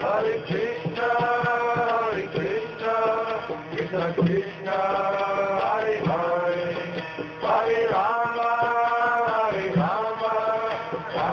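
Devotional kirtan-style chanting: a voice sings a mantra in long held phrases, each a second or two with short breaks between, over a steady drone.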